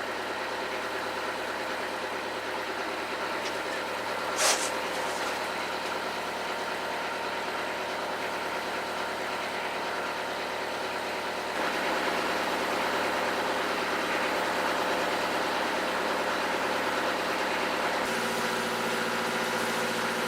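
Inboard engine of a classic wooden motor cruiser running steadily under way, getting louder about twelve seconds in. A brief sharp noise cuts in about four seconds in.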